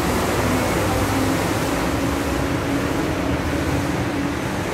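Steady rumble of city vehicle traffic, with a faint, even hum running through it.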